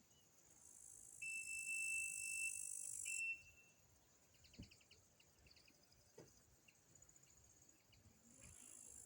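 Insects chirring in the countryside: a high, hissing buzz that starts within the first second and cuts off abruptly a little past three seconds, then starts again near the end. A steady high whistle-like tone rides over the first buzz, and short pulsed chirps follow just after it stops.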